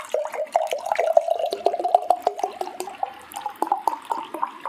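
Tea poured from a large plastic bottle into a glass mason jar, glugging and splashing, its pitch rising steadily as the jar fills.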